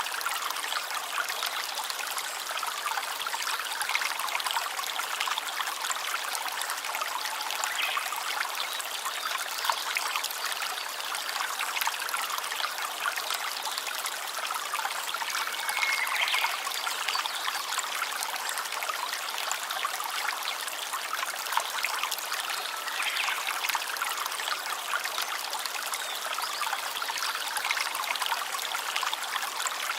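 A stream trickling and babbling steadily, with a brief high chirp about halfway through.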